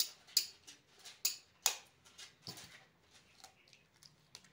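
A raw egg tapped sharply against a mixing bowl about five times in the first two and a half seconds to crack it, followed by fainter small crackles as the shell is pulled open.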